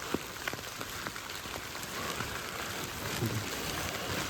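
Steady rain falling, a soft even hiss with scattered close raindrops ticking sharply.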